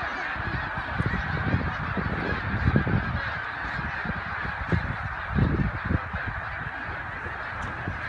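A huge flock of migrating birds calling all at once, a continuous massed din of overlapping honking calls. A few low rumbles come through underneath.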